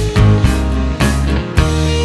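Background rock music with electric guitar over a steady beat.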